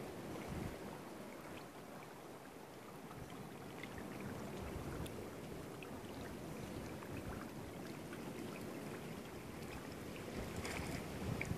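Gentle lapping of shallow water with scattered small drips and ticks, a little louder near the end.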